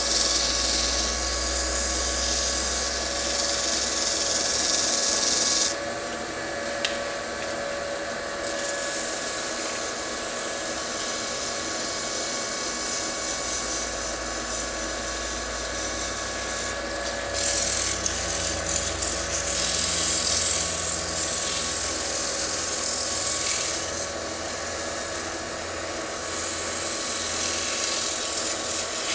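Wood lathe running with a steady motor hum while something is pressed against the spinning bowl, giving a rubbing hiss in three long stretches that come and go.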